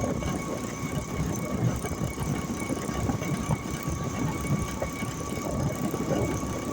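Motor rickshaw running along the road, heard from the passenger seat: an uneven low engine rumble with a steady high-pitched whine over it.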